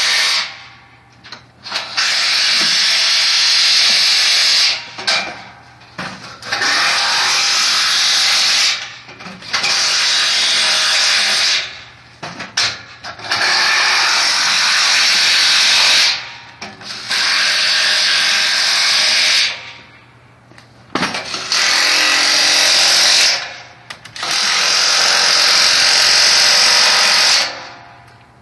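Cordless drill boring into the concrete balcony deck, run in about eight spells of two to four seconds each with short pauses between.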